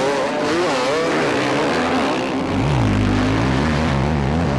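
Motocross motorcycle engine revving, its pitch rising and falling. From about halfway a deeper, steadier engine note comes in and grows louder.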